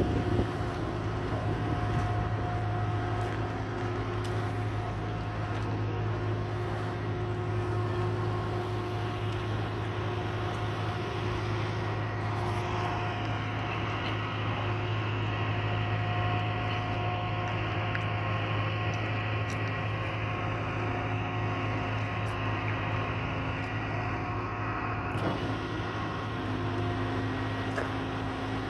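A steady low machine drone with a few constant tones over it, like an engine or motor running without change. A higher hiss joins about twelve seconds in and cuts off suddenly near the end.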